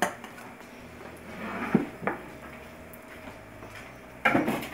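Dishes and kitchenware being handled on a counter: a sharp knock at the start, a couple of light knocks about two seconds in, then a loud clatter of dishes near the end.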